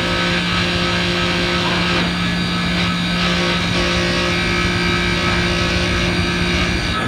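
Manitowoc commercial ice machine running: its compressor gives a steady hum over a constant rushing noise.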